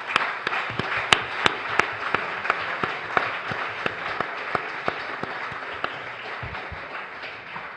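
Audience applauding, many hands clapping in a dense patter that gradually dies down.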